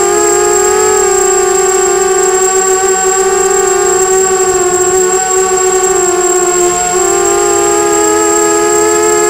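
Brushless motors and propellers of a 250-size FPV racing quadcopter, heard from its onboard camera: a loud, steady multi-tone whine whose pitch shifts slightly with throttle, dipping a little about seven seconds in. A thin, high-pitched tone runs above it.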